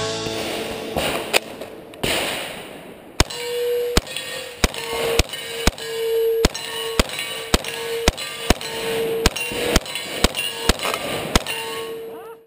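Drum-fed Thompson submachine gun firing shot by shot, about two shots a second, with a ringing metallic clang between the shots from about three seconds in. The shooting cuts off abruptly at the end.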